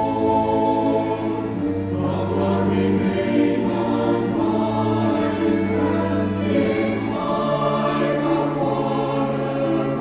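Church choir singing sustained chords with accompaniment, the chords changing every few seconds.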